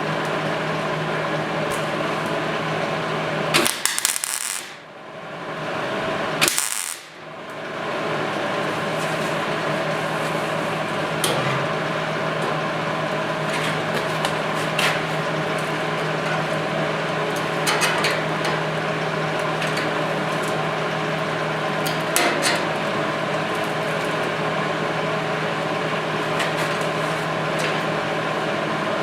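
Steady machine hum with several even tones, broken about four and six and a half seconds in by two short, sharp bursts, each followed by a brief dip in the hum. Scattered light metallic clicks and taps follow.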